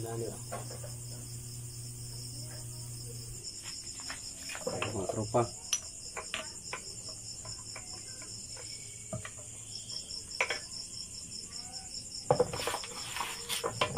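Crickets chirping in a steady, pulsing high trill, with scattered metallic clinks and knocks of gears and tools being handled in an open manual gearbox case, loudest near the middle and near the end.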